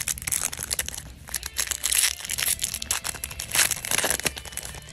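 Foil Yu-Gi-Oh booster pack wrapper crinkling and crackling as it is handled, with many small sharp clicks.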